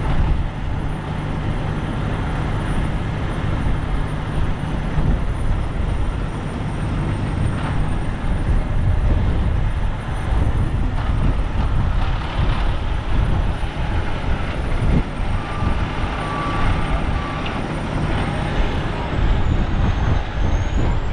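Strong gusting wind buffeting the camera microphone, with a heavy truck engine running underneath. The steady engine hum drops away about five seconds in, leaving the rumbling wind noise.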